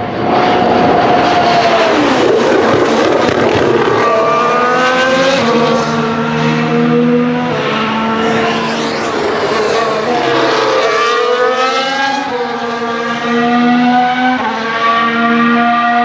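Formula One car engine accelerating hard at high revs, its pitch climbing and dropping back at each upshift several times.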